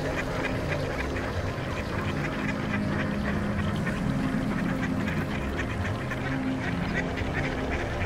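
A large flock of mallards quacking, many overlapping calls throughout, over a low steady hum.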